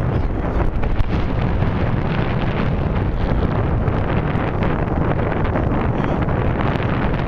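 Wind buffeting the microphone: a steady low rumble with hiss and small crackles throughout.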